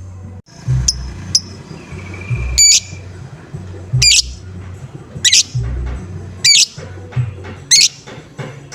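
Lovebird giving harsh 'ngoek' calls, five in a row about a second and a quarter apart, after two short chirps about a second in. A steady low beat of background music runs underneath.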